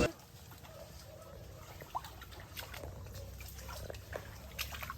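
Faint, scattered squelches and small splashes of feet wading through soft mud and shallow water.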